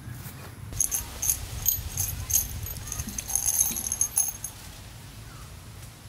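High-pitched chirping in a run of quick, clear pulses lasting about four seconds, over a low steady background rumble.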